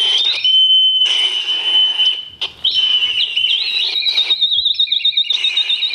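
Experimental electronic sound-art music: high whistling tones over a hiss, first one steady tone, then after a brief break a warbling, wavering tone with a second tone under it.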